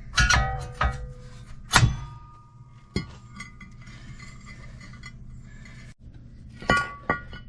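Metal tools and brake parts clanking and clinking. There are a few sharp knocks with short ringing near the start, single ones about two and three seconds in, and another cluster near the end.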